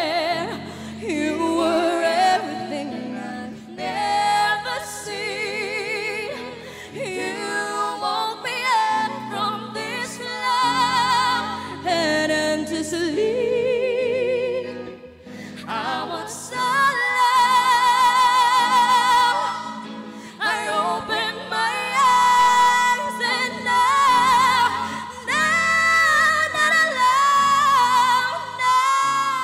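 Female lead voice singing long, wavering vocal runs and held notes with vibrato over a live pop band's sustained chords. It grows louder and higher about halfway through, ending on long belted notes.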